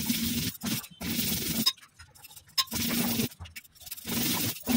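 Stone roller (batta) grinding back and forth on a stone slab (sil) as mustard seeds, salt, turmeric and cumin are crushed into a masala paste. It makes a rasping scrape in a series of strokes, each about half a second long, with short pauses between them.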